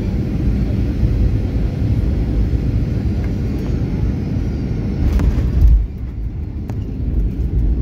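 Airliner cabin noise during the landing roll: a loud, steady low rumble from the plane rolling along the runway. It swells a little past five seconds in, then drops off suddenly just before six seconds.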